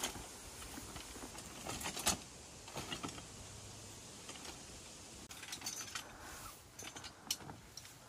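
Folding camping cot's metal frame clicking and rattling as it is unfolded and set up, in irregular sharp clicks and knocks, the loudest about two seconds in.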